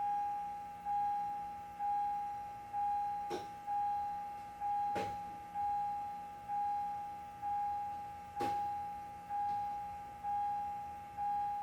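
1998 Ford Contour's dashboard warning chime dinging over and over, about once a second, one mid-pitched ding each time that fades before the next. A few faint clicks sound under it.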